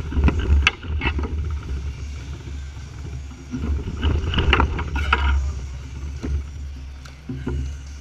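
A HeroClix booster pack being torn open and its packaging crinkled by hand, many irregular crackles, over a deep rumble of the filming phone being handled close to its microphone.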